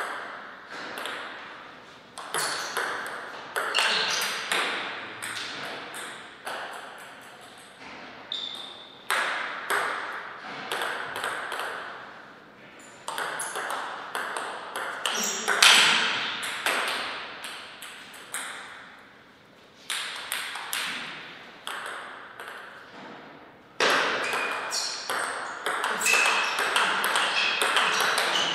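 Table tennis rallies: the ball clicks in quick alternation off the table and the players' rubber-faced bats, in bursts of play with short pauses between points.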